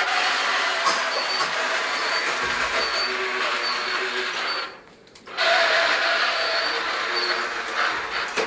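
Wire-controlled toy Pegaso trucks running across a tile floor, their small electric motors and plastic gears whirring steadily. They stop for about half a second around the middle and then start up again.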